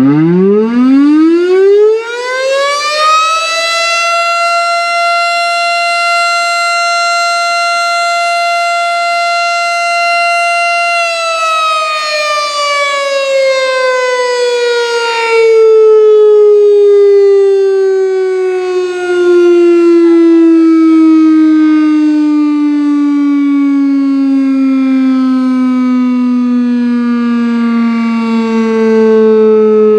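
Federal Signal STH-10 single-tone rotating siren on a noon test blast. It winds up from a low growl to a steady high wail within about four seconds and holds there for about seven seconds. Then it slowly winds down, its pitch still falling near the end, and its loudness swells and fades as it turns.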